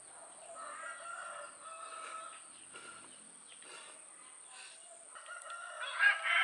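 A rooster crowing twice: one drawn-out crow starting about half a second in, and a louder one beginning near the end.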